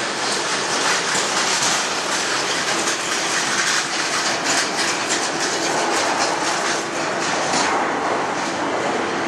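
Boeing 767 jet engines running as the airliner taxis: a loud, steady rushing noise, with a faint steady hum coming in about halfway.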